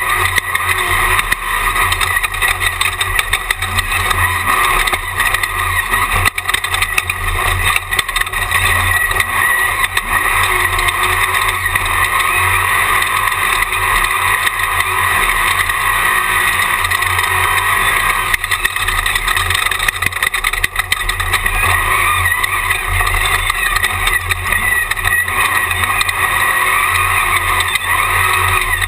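Jimco Class 1 off-road race car running hard at speed, heard from an onboard camera, with a continuous engine and wind rush and frequent knocks and rattles from the chassis.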